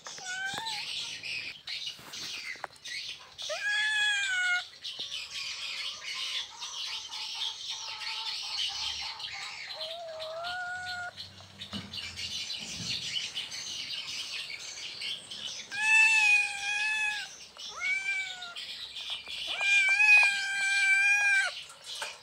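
Domestic cat in heat calling: about six drawn-out meows, some level and some rising at the start, with the longest and loudest near the end.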